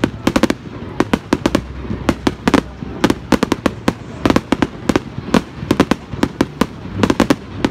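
Aerial fireworks bursting in rapid volleys of sharp bangs, several a second, coming in clusters with short gaps between them.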